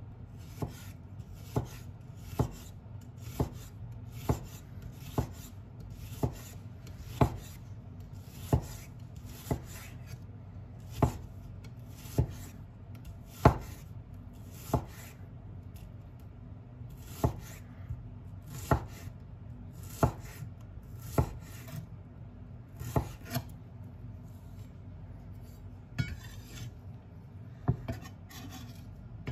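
A chef's knife slicing an onion on an end-grain wooden cutting board. Each slice ends in a sharp knock of the blade on the wood, about one a second, with a brief pause about halfway through.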